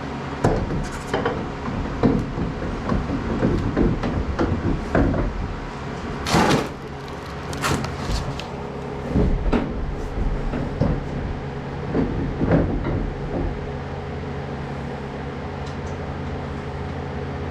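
Irregular clunks, knocks and rattles of tools and car parts being handled, over a steady low hum, with a louder hissing rush about six seconds in.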